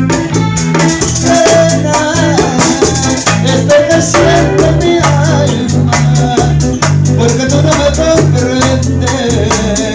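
Live bachata band playing an instrumental passage: the güira scrapes a steady, even rhythm over an electric bass line, with a guitar melody on top.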